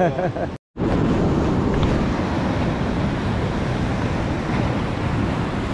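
Steady noise of ocean surf breaking, with wind on the microphone.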